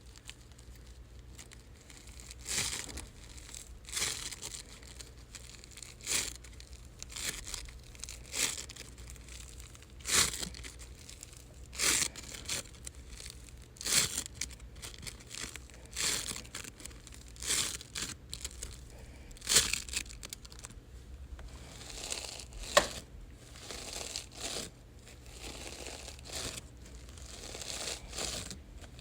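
Floam, a sticky slime packed with tiny foam beads, being squished and pulled apart: sticky, crackly tearing sounds that come about every one to two seconds, then turn softer and more continuous near the end.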